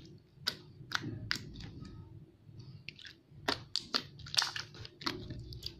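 Hands squishing and poking a runny, sticky slime, making a run of irregular sticky clicks and pops. The pops are busiest about three and a half to four and a half seconds in.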